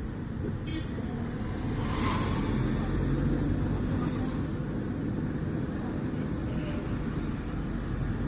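Car engine and road rumble heard from inside the cabin while driving slowly in town traffic, with a brief sharper noise about two seconds in.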